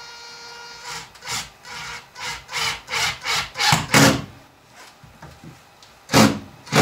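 Cordless impact driver driving a screw into wood to fix a cable clip: a brief steady motor whine, then a quick run of short bursts as the screw bites in, and two more short bursts near the end.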